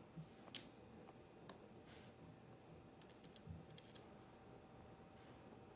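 Faint, scattered clicks of small number tiles being handled and set down, with one sharper click about half a second in and a quick cluster of clicks about three seconds in.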